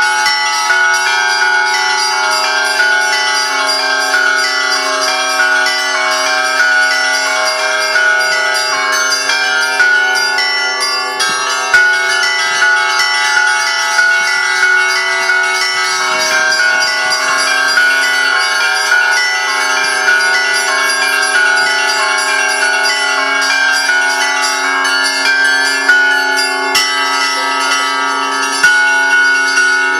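Russian church bells ringing a continuous peal: many bells of different pitches struck over and over, their tones overlapping and ringing on with no pause.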